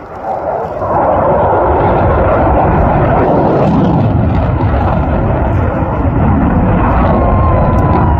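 Loud, steady rushing noise of an airplane's engines that rises sharply about a second in and holds, with a thin steady tone joining near the end.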